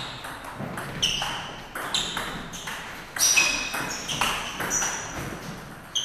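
Table tennis rally: the ball clicking sharply off bats and table, about eight hits spaced half a second to a second apart, each with a brief high ping.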